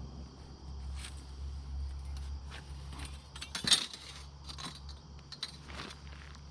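A steel sawmill bandsaw blade being handled and coiled by hand, with scattered metallic clinks and rattles; the sharpest clink comes a little past halfway. A steady low hum runs underneath.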